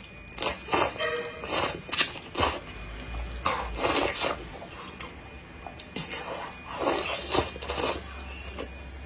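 A person slurping wide hand-made noodles and chewing them: a run of short, wet slurps and mouth noises, bunched in the first two seconds, again at about three and a half to four seconds in, and around seven seconds in.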